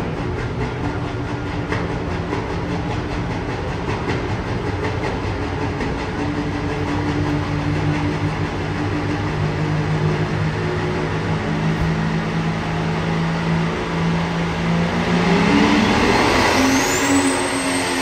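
Pulling tractor's engine running steadily while hooked to the sled at the start line, then revving up about three seconds before the end, with a high whine climbing sharply in pitch.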